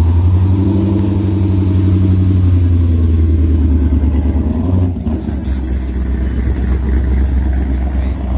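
Deep, steady exhaust note of a Chevrolet C6 Corvette's V8 pulling away at low revs. About five seconds in, a second C6 Corvette's lower note takes over.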